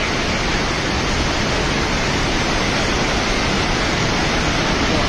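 Floodwater carrying mud and debris rushing past in a loud, steady, unbroken rush.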